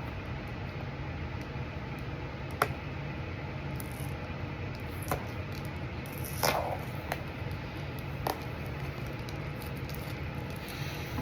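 Packing tape and cardboard packaging being pulled and picked at by hand: scattered crinkles, scrapes and clicks, the loudest a crackle about six and a half seconds in, over a steady low hum.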